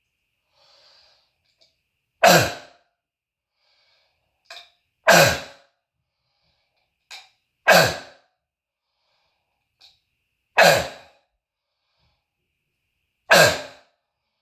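A man's harsh, barking croup cough: five loud single coughs about one every three seconds, each fading off the room's walls, with faint short breaths drawn between them. It is the seal-like bark of croup, which his doctor diagnosed.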